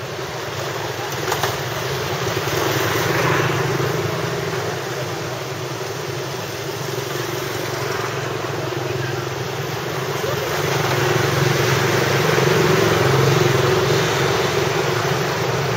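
Steady road traffic noise from passing vehicles, a low rumble that swells louder about three seconds in and again later.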